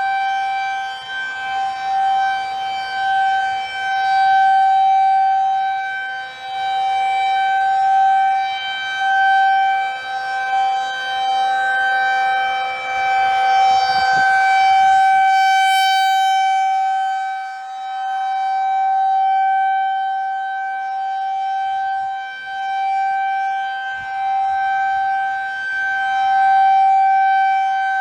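Federal Signal 2001 rotating tornado siren sounding a steady, single-pitched wail at full speed. Its volume rises and falls every few seconds as the rotating horn sweeps toward and away.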